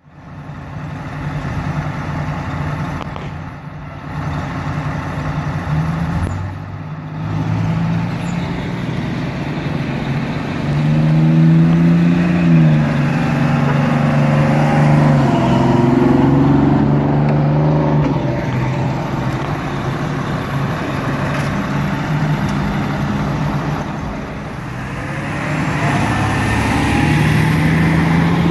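Diesel fire trucks driving past one after another, their engines running with the pitch rising and falling as they pull through. The loudest pass, about halfway, is a Spartan pumper with a Detroit Diesel engine. Near the end an E-One aerial ladder truck goes by close.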